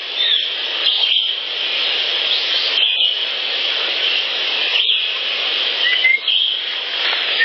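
Wild birds calling in short chirps and brief rising whistles over a steady outdoor hiss.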